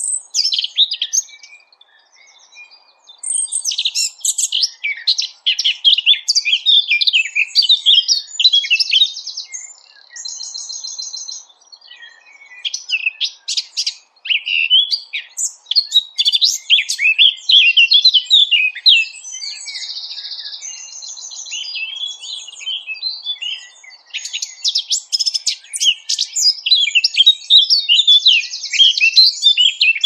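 Small songbirds singing in a masteran, a recording played to teach caged songbirds: fast high-pitched chirps, sweeps and buzzy trills in dense runs, broken by short pauses about two seconds in and around twelve seconds.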